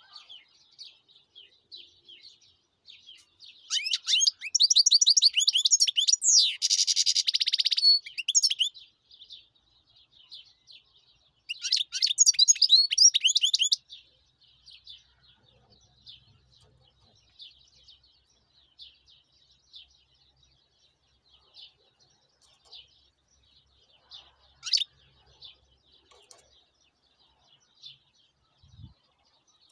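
European goldfinch singing: soft twittering throughout, broken by two loud bursts of rapid song, the first from about four seconds in and ending in a buzzy rattle, the second around twelve seconds in. A single sharp call near twenty-five seconds in.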